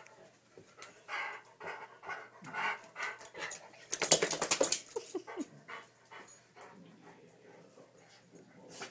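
Weimaraner panting hard in quick, regular breaths while play-wrestling, with a loud rustling scuffle for about a second midway as it tussles against a person's lap.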